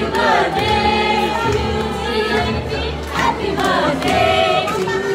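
A group of people singing together over music with a steady bass line.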